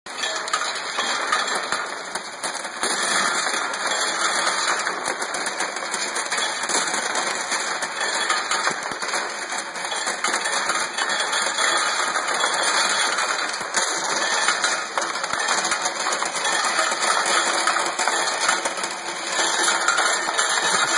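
Vibratory bowl feeder running, with many midsize bearing rings clattering and clinking against its metal bowl and track in a continuous dense rattle.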